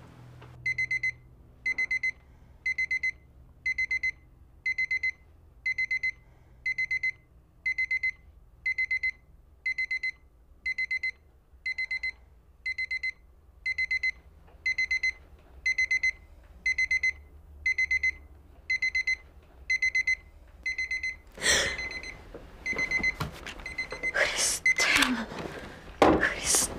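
Digital alarm clock beeping: groups of quick, high electronic beeps about once a second, for about twenty seconds, then it stops. Loud rustling and handling noises follow near the end.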